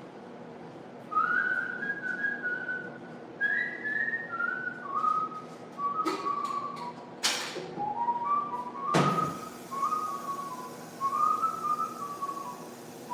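A person whistling a tune, a string of stepping notes that wander up and down, with a couple of knocks midway and one brief rush of noise between them.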